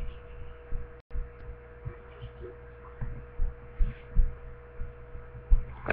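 A steady electrical hum with irregular soft low thuds, like something bumping near the microphone; the sound drops out briefly about a second in.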